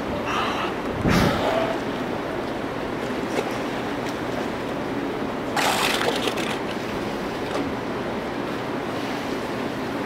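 Steady outdoor wash of pool water and wind noise, with a brief loud low burst about a second in and a short splash-like burst near the six-second mark, as a killer whale lifts its head out of the water.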